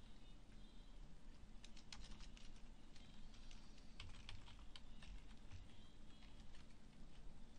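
Computer keyboard typing: faint, irregular runs of keystrokes over a steady low hum.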